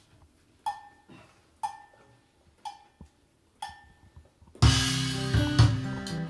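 Four evenly spaced count-in clicks with a cowbell-like ring, about one a second, then a little over four seconds in the band comes in together: strummed acoustic guitars, ukulele bass and electronic drums played on a Zendrum.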